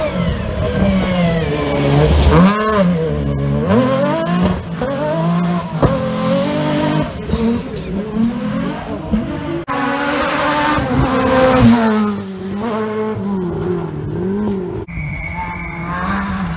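Rally car engine revving hard at high rpm, pitch climbing and dropping repeatedly with gearshifts and throttle lifts as the car is driven flat out through a loose-surface corner.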